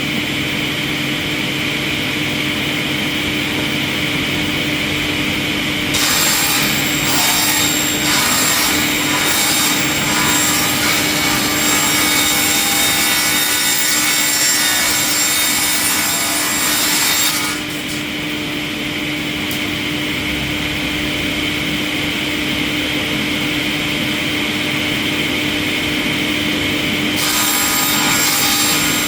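An industrial wood-processing machine cutting into raw logs: a steady machine running, with two long stretches of harsher, high-pitched cutting noise, the first starting about six seconds in and ending a little past the middle, the second starting near the end.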